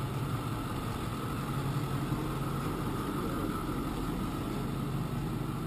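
Engine of an armoured police 4x4 vehicle running steadily at close range.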